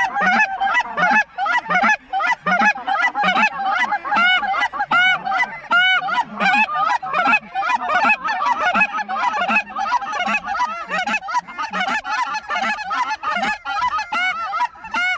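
A dense, unbroken chorus of rapid goose honks and clucks, several a second, from a large flock of geese circling overhead, mixed with hunters blowing goose calls to work the flock in.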